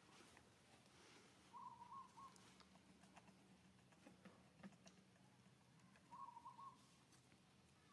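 Infant long-tailed macaque giving two short, wavering coo calls a few seconds apart, faint.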